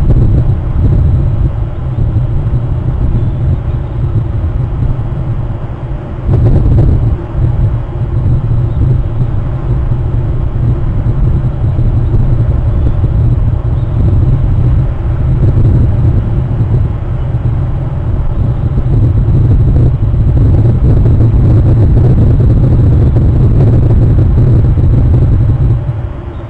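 Loud, steady low rumble on an outdoor microphone, swelling briefly about six seconds in.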